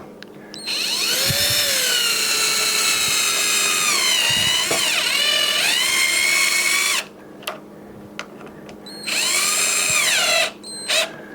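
Power drill/driver running screws into the door edge to fix the door latch: a long whining run of about six seconds whose pitch sags midway as the screw takes up load, then a second short run of about a second and a half that winds down as it stops.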